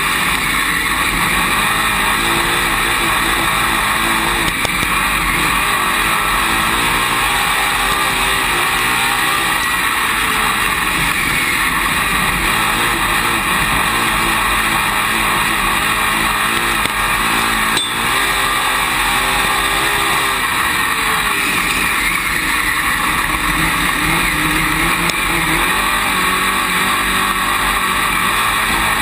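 Dirt late model race car's V8 engine heard from inside the cockpit at racing speed, loud and steady, its pitch rising and falling several times as the throttle comes on and off, over a constant rush of noise. One brief knock about two-thirds of the way through.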